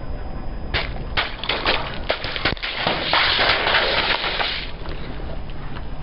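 Car tyre rolling over a row of liquid-filled plastic tubes: a quick series of sharp pops as the tubes burst, starting about a second in, then a hissing spray of liquid squirting out for nearly two seconds.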